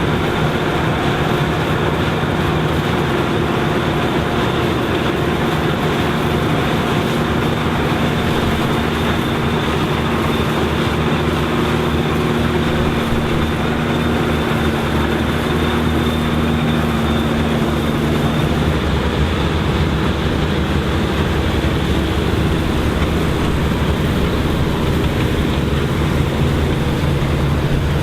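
Vintage combine harvester running steadily while harvesting corn, its engine and machinery making a continuous drone. The engine note shifts about two-thirds of the way through.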